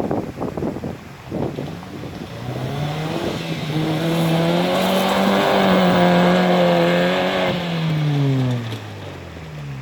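Opel Frontera's engine working hard off-road: its pitch and loudness climb over a couple of seconds, hold high for about three seconds, then drop away. A few irregular knocks come in the first two seconds.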